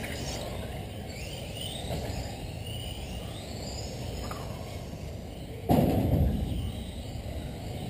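Electric 1/10-scale RC race cars with brushless motors whining past, the motor pitch rising and falling as they accelerate and brake. A sudden loud thump about five and a half seconds in, dying away over about a second.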